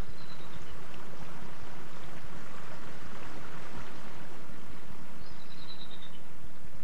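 Flowing stream, a steady rush of water, with a bird calling a short run of descending chirps at the very start and again about five seconds in. A low steady hum runs underneath.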